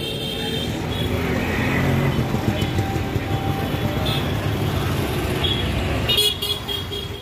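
Busy street traffic: vehicle engines running with horns honking, including short horn blasts about six seconds in.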